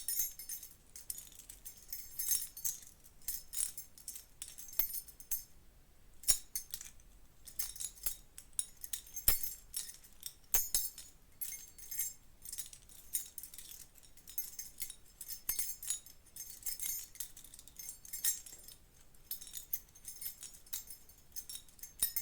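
A bunch of metal keys jangling and clinking against each other in irregular shakes, with a short lull about six seconds in.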